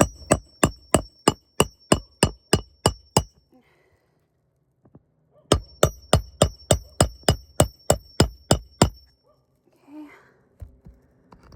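Hammer striking a roof snake to drive roofing nails under a shingle, metal on metal with a high ring on each blow. Two runs of about a dozen steady blows, roughly three a second, with a pause of about two seconds between them.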